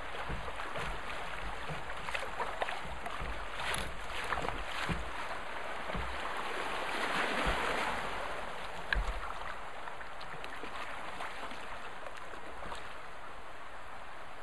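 Shallow river riffles rushing and splashing around a sit-on-top kayak drifting downstream, swelling louder about seven seconds in, with a sharp knock about nine seconds in.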